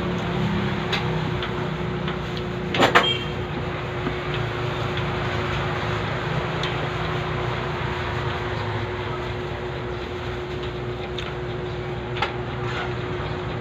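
Steady low mechanical rumble with a constant hum, like a motor running, with a few sharp clicks and knocks, the loudest about three seconds in and another near the end.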